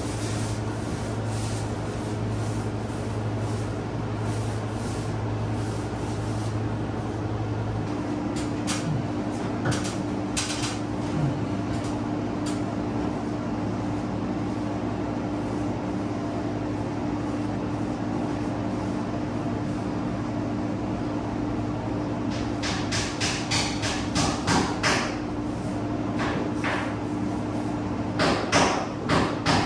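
A steady machine hum with two constant low tones throughout. A few sharp knocks come about ten seconds in, and near the end two runs of quick repeated knocks follow.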